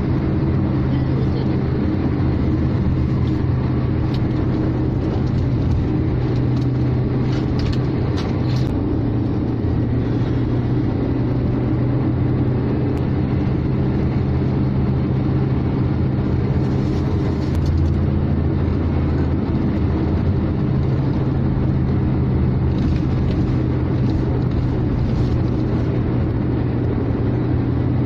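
Steady drone of a car cruising at highway speed, heard from inside the cabin: engine and tyre road noise with a constant low hum.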